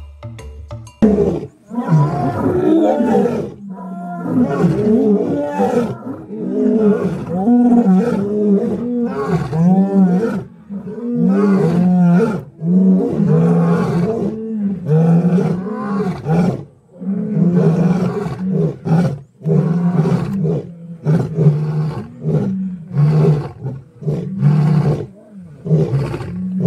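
Lions growling and roaring in a long, loud run of low calls broken by short pauses, beginning about a second in.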